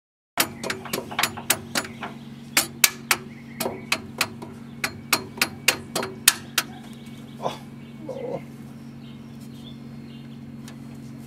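A run of about twenty sharp metal knocks, two to four a second, like hammer taps during engine teardown. One more knock and a short scrape follow near the end, over a steady low hum.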